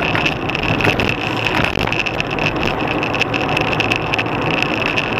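Steady car-interior driving noise picked up by a dashcam: engine and tyre noise on a wet road, with a constant high hum and frequent faint ticks.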